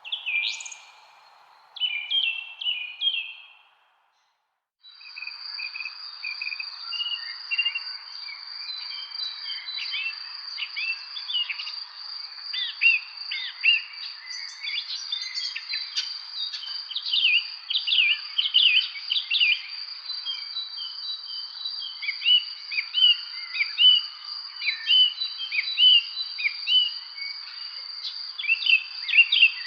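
Birds chirping and calling in quick descending notes. After a brief abrupt break, a busier chorus of chirps continues over a steady high-pitched drone.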